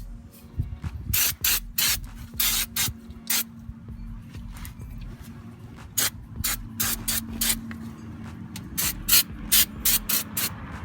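Aerosol brake cleaner sprayed from a can in many short hissing bursts, in two runs with a pause between them.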